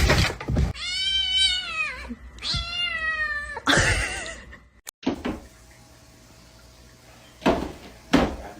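A domestic cat meowing: two long, wavering meows of about a second each, followed by a short noisy sound. After a break, two brief thumps come near the end.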